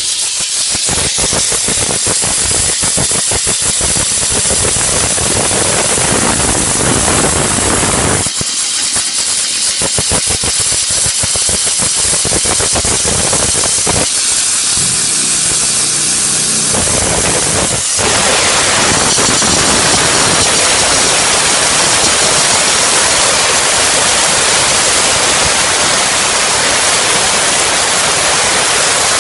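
LPG-fired mobile steam car wash machine running, with a loud, rapid mechanical pulsing for the first half. A little past halfway this gives way to the steady hiss of steam jetting from the steam gun.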